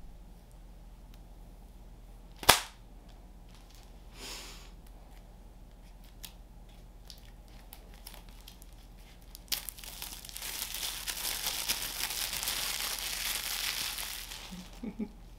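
Packaging being peeled and torn off the white box of an Apple Watch Series 6: a long crinkling, tearing rustle in the second half. A single sharp snap comes a few seconds in and is the loudest sound.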